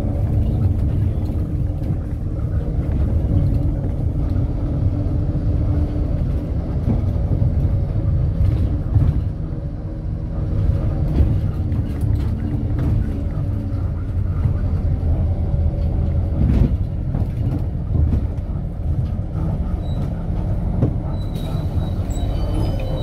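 City bus running, heard from inside the cabin: a steady low engine and road rumble with a few knocks, and a faint high squeal near the end.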